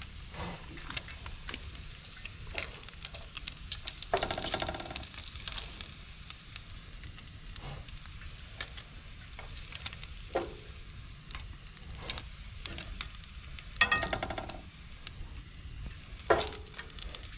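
Potatoes and bacon frying in a pan on a camp stove, sizzling and crackling steadily, with two louder scrapes of a utensil in the pan about four seconds in and near fourteen seconds.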